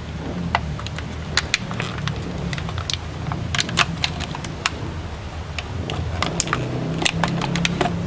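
Clear plastic clamshell packaging of an HDMI-to-AV converter being opened and handled: a run of irregular sharp plastic clicks and crackles, over a steady low hum.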